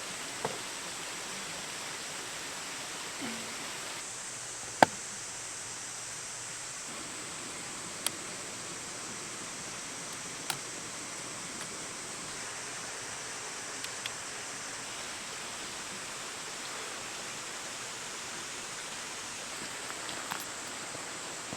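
Steady outdoor hiss with a faint high whine, broken by a few isolated sharp clicks or pops; the loudest comes about five seconds in.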